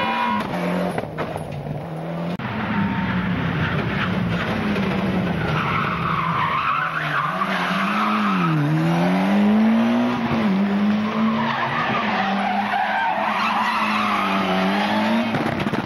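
Rally car engine working hard through a stage section, its note dropping and rising again twice near the middle as the driver lifts off and gets back on the throttle, with tyres squealing through the corners.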